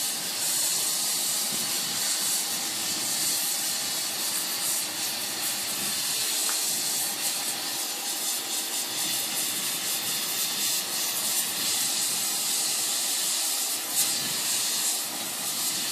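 Oxyacetylene torch with a rosebud heating tip burning with a steady hiss, its flame held on the edge of a Damascus steel blade to bring it to hardening heat for differential edge hardening.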